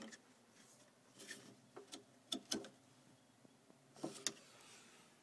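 Faint handling noise: scattered knocks and rubs, bunched near the end, as a phone camera is moved about against a jet ski's fibreglass hull and engine parts.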